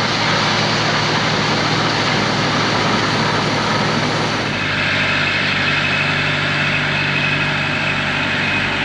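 Tractor engine and tractor-driven silage machinery running steadily under load. A thin high whine joins about halfway through.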